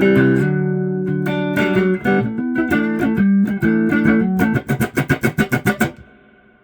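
Electric guitar played through a tube Matamp reverb unit into a Fender Deluxe Reverb amp, reverb set at about 7: held chords, then a fast run of repeated strums, about six a second, that stops short and leaves the reverb tail ringing out.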